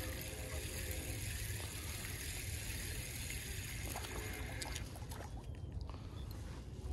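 Spinning reel being cranked in a steady whirr over a low wind rumble on the microphone. The reeling stops about five seconds in, with light splashes as a small fish is drawn across the surface.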